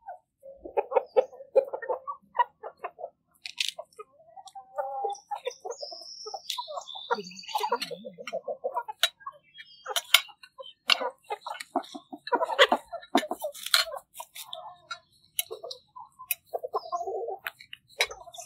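Hens clucking on and off, with forks and spoons clicking and clinking against plates, and a few high bird chirps.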